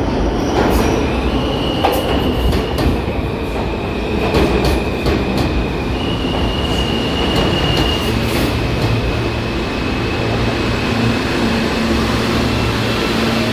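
New York City Subway R160 train pulling into a station: wheels clack over rail joints under a high, steady squeal that shifts pitch a few times. About eight seconds in, this settles into a steady low hum.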